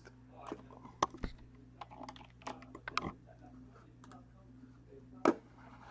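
Computer keyboard keys clicking in scattered, irregular taps, with one sharper click near the end, over a faint steady electrical hum.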